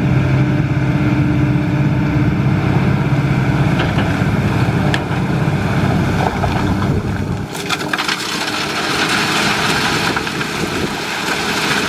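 Kobelco SK200 excavator's diesel engine running with a steady low drone. About seven and a half seconds in, the low drone drops away and a brighter rushing, rattling noise with a few sharp clicks takes over.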